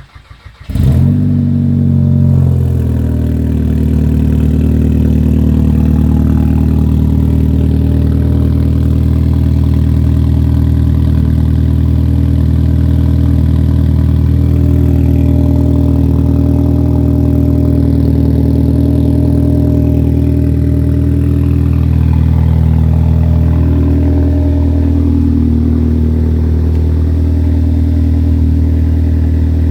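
Big-turbo VW MK6 GTI's turbocharged 2.0-litre four-cylinder cold-started: the starter cranks briefly, the engine catches under a second in with a rev flare, then settles into a steady fast cold idle. The idle pitch shifts slightly a little over twenty seconds in.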